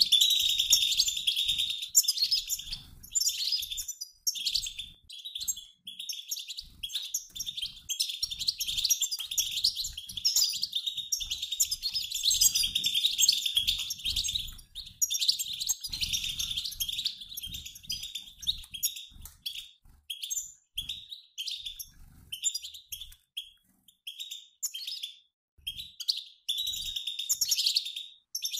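European goldfinches twittering together: the fast, overlapping chatter of a mixed flock of males and females, like a flock on the wing. It thins out into broken bursts for a few seconds past the middle, then picks up again.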